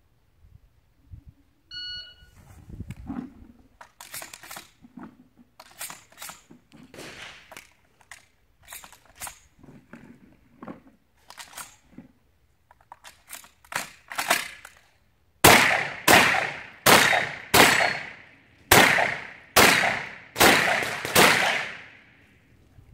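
A shot-timer beep, then about thirteen seconds of scattered clicks and clacks as shells are taken from a bucket and loaded into an empty shotgun. Then eight shotgun shots in quick succession, with a slightly longer pause after the fourth.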